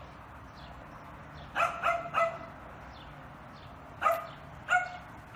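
Dog barking: three quick barks about a second and a half in, then two more near the end.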